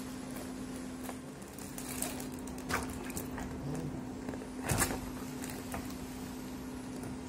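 Plastic fish bag rustling and crinkling in short, sharp bursts, with water moving, as the bag is tipped and a fish is let out into an aquarium. The loudest crinkle comes a little before the end. A steady low hum runs underneath.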